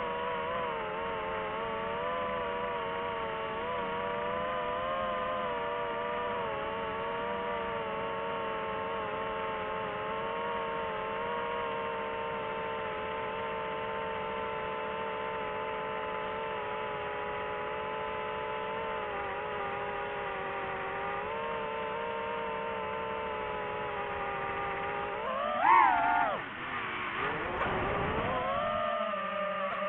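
DJI FPV drone's motors and propellers whining steadily, the pitch wavering slightly with throttle. Near the end the whine rises sharply and falls away again, the loudest moment, before settling at a lower pitch.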